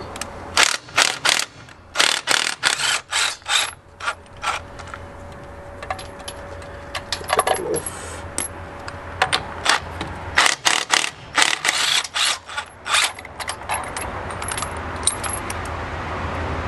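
Ryobi XIW-3100 18V cordless impact wrench hammering wheel lug nuts loose, running in many short bursts with brief pauses between them.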